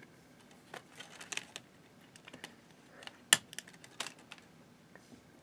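Scattered light clicks and taps of a plastic multi-disc DVD case and its clear disc trays being handled, with one sharp click a little over three seconds in.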